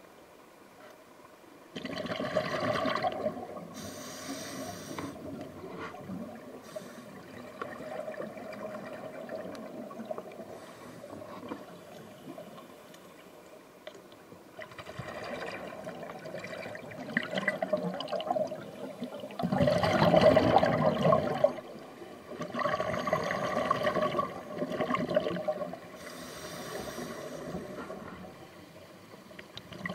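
Scuba regulator breathing heard underwater: exhaled air bubbling out in repeated gurgling surges, each lasting one to three seconds, the loudest about two-thirds of the way through.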